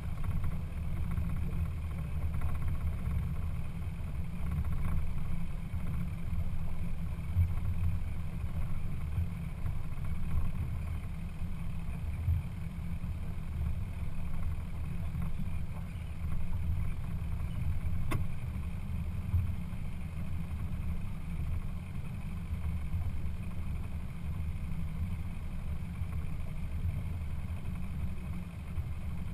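Steady low rumble of a boat under way, fluctuating irregularly, with one faint click about two-thirds of the way through.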